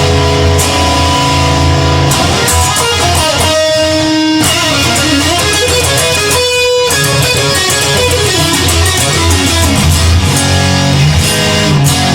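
Instrumental rock music led by electric guitar, with a steady bass line and held notes bending between pitches, and no singing.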